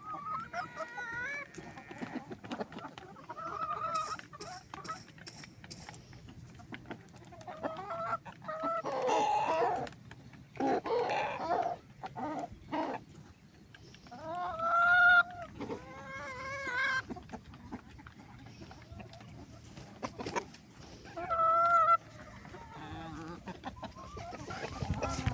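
Chickens clucking and calling in separate bouts a few seconds apart, the loudest and harshest calls coming about halfway through.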